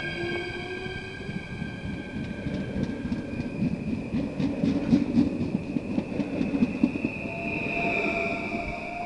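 NS electric passenger train running past along the platform: an electric whine from the traction equipment, with rhythmic clicking of the wheels over rail joints in the middle, then the whine again near the end.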